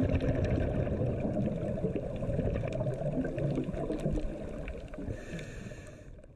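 Underwater ambience picked up by a GoPro: a dull low rumble with scattered faint clicks, fading out near the end.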